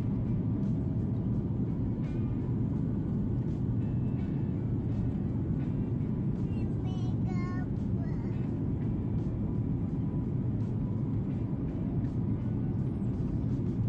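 Airliner cabin noise: the steady low rumble of jet engines and airflow, heard from a window seat during the descent.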